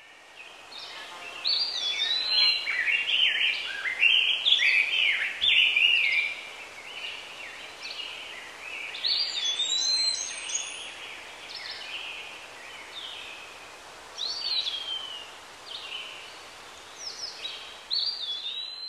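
Several songbirds singing and chirping over a steady soft hiss of woodland ambience, busiest in the first few seconds, then thinning to scattered whistles, some falling in pitch.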